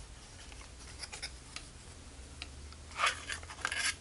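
Cardboard packaging being handled: a few light clicks and taps, then a louder scraping rustle about three seconds in as the cardboard insert is slid off the sensor.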